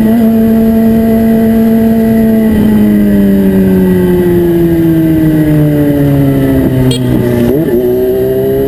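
Yamaha FZ6's inline-four engine running through an Atalla aftermarket exhaust, loud. Its note holds steady, then slowly falls in pitch over several seconds, with a brief wobble a little before the end before it settles.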